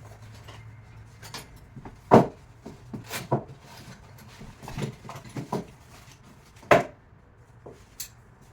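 Scattered knocks and clinks of a wrench and metal battery hold-down parts being handled, with two louder knocks about two seconds in and near seven seconds.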